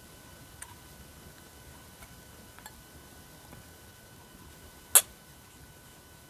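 Faint metal ticks and one sharp click about five seconds in, from a shim being lined up against a lock core while the lock is gutted from the back.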